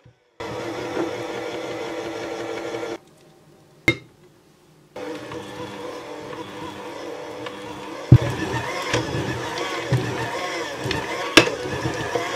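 Electric hand mixer with dough hooks running, kneading brioche dough as butter is worked in. The motor stops for about two seconds, with a single click in the gap, then starts again. From about eight seconds in, the hooks knock irregularly against the bowl and the butter chunks.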